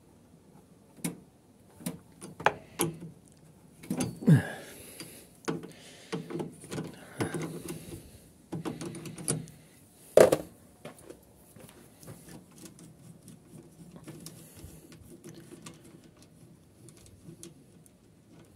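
Metal clicks, clinks and knocks of an L-shaped socket wrench loosening the terminal nuts on a ride-on mower's starter solenoid, with a sharp knock about ten seconds in. After that, quieter handling as a nut is turned off by hand.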